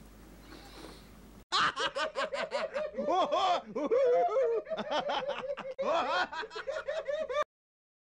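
Laughter: a run of quick 'ja-ja' bursts that starts abruptly about one and a half seconds in, after faint room tone, and cuts off suddenly near the end.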